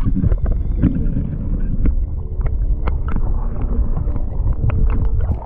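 Muffled rumbling and sloshing of shallow water heard through an action camera held underwater, with many small clicks and taps scattered through it.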